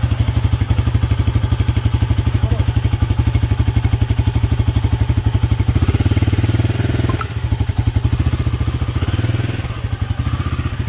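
Royal Enfield Himalayan 450's single-cylinder engine idling, heard close to the exhaust silencer as a steady, even pulsing beat, picking up briefly around six seconds in before settling back.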